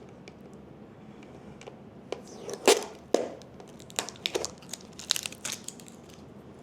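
Packaging crinkling and rustling as it is handled, in a string of short irregular crackles and clicks, the loudest a little under halfway through.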